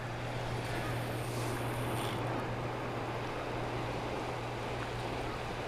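Steady wind and moving river water, an even rushing noise with a constant low hum underneath.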